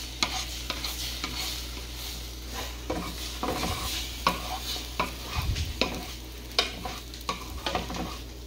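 Earlywood flat-edged wooden spatula stirring and scraping scrambled eggs across a nonstick pan, with irregular scrapes and light taps of the wood on the pan, over a faint sizzle of the eggs frying.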